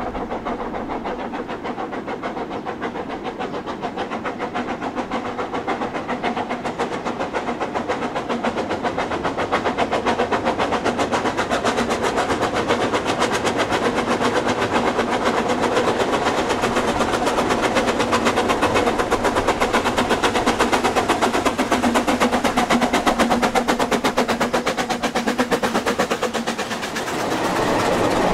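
Narrow-gauge steam train running with a fast, even beat, growing louder over the first several seconds.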